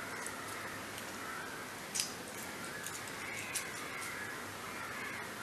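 Faint bird calls in the background, with two short sharp knocks about two seconds and three and a half seconds in.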